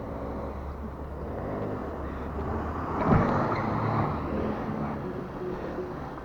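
Car engine running and revving, rising to its loudest about three seconds in.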